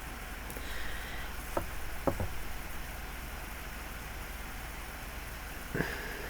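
Steady low room hiss with a few faint short taps, three of them close together a second and a half to two and a half seconds in and one near the end.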